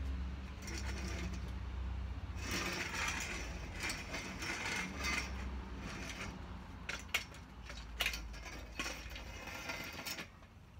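Metal-framed folding chair being moved and handled on a concrete patio: irregular scraping and rattling of the frame, with two sharp clicks a little after halfway.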